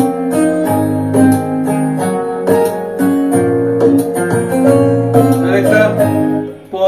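A song playing through an Amazon Echo smart speaker, which stops abruptly near the end.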